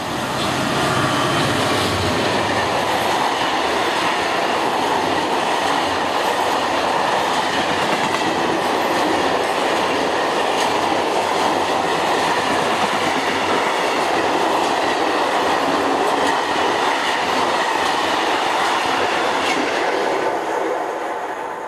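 Colas Rail Class 66 diesel locomotive 66845 running through at speed, then a long train of loaded timber wagons rolling past with steady wheel and rail clatter. The sound fades near the end as the last wagon goes by.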